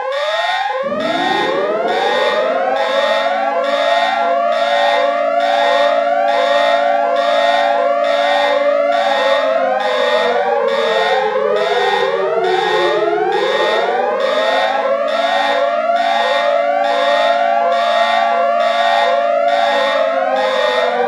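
An emergency alert system alarm made of layered siren tones. A low wailing tone starts about a second in, sinks slowly to its lowest a little past the middle, climbs back, and falls again near the end. Over it, rising and falling sweeps repeat, with a steady pulse of about one and a half beats a second.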